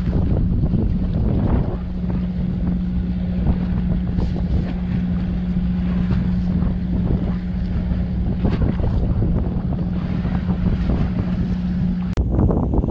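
Steady low hum of a fishing boat's machinery, with wind buffeting the microphone and sea water washing alongside. The hum stops abruptly near the end.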